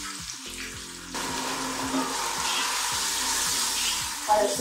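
Onion, tomato and spice masala sizzling in hot oil in a nonstick pot as it is stirred with a spatula; the sizzle gets louder about a second in and then holds steady.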